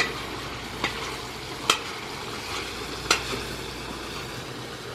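Meat frying and sizzling in a steel cowboy wok (discada disc), with a metal spatula clinking and scraping against the pan four times as it is stirred.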